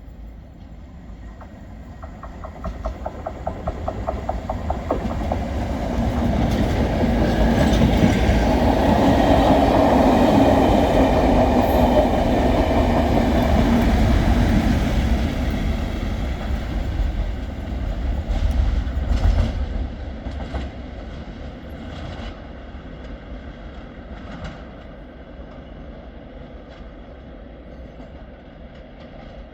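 Class 37 diesel locomotive with its test train passing. The sound builds to a peak and fades away, then the wheels click over the rail joints in a run of clicks as the rest of the train goes by.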